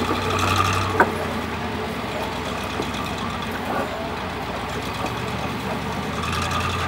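Competition trial truck's diesel engine running at low revs, steady, as the truck crawls over rocks, with one sharp knock about a second in.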